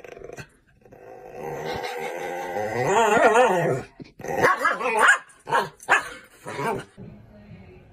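Small black-and-white dog vocalizing at hands waved in its face: one long cry with a wavering pitch that builds over about three seconds, then a string of shorter, choppy cries.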